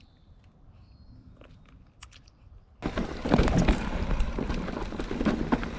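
Faint chewing of a bite of dill pickle with a few soft clicks, then, about three seconds in, a sudden change to a Specialized Stumpjumper mountain bike riding a dry dirt trail: wind on the microphone and tyre noise, with knocks and rattles over bumps.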